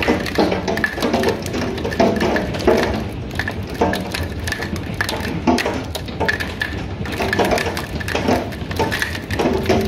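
Hailstones pelting a wooden deck and a glass door: a dense, irregular clatter of many small hits.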